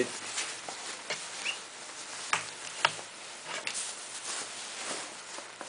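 Rustling and crinkling of a synthetic padded jacket's shiny shell and lining as it is handled and smoothed out, with two sharper crinkles about half a second apart a little over two seconds in.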